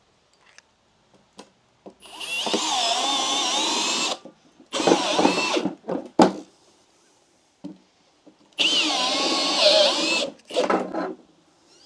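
Power drill driving screws into timber, in two long runs of about two seconds each with short bursts between them. The motor whine wavers in pitch as the screws bite.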